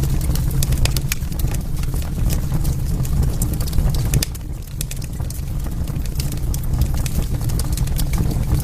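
Wood fire crackling, with frequent sharp snaps and pops over a steady low rumble of the burning fire, easing briefly a little after four seconds in.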